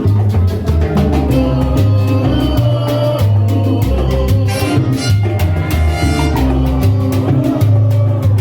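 Live salsa band playing a guaguancó, with a driving bass line and steady percussion strikes.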